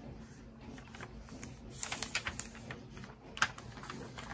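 Hands handling a journal's paper pages, with soft rustling and light clicks. There is a busier flurry of rustles about two seconds in and a single sharper click near three and a half seconds.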